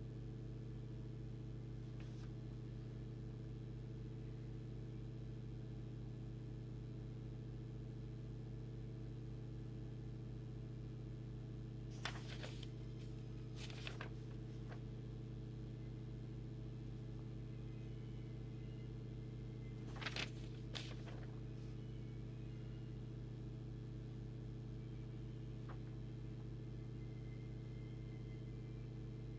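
Steady low electrical hum, with short rustles of paper as manual pages are turned: twice about twelve to fourteen seconds in and twice more about twenty seconds in.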